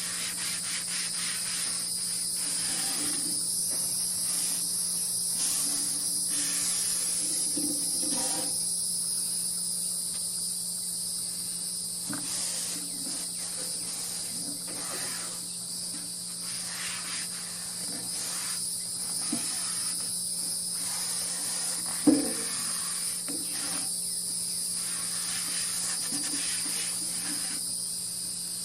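A rag rubbing over the sanded steel top of a Blackstone 17-inch griddle in repeated strokes, roughly one a second, wiping off sanding residue with oil, over a steady high chorus of insects. One sharp knock about 22 seconds in.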